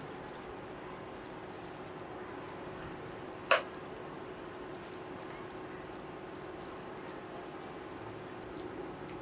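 Chicken curry sizzling steadily in a stainless steel pot as it is stirred with a silicone spatula, with one sharp clink about three and a half seconds in.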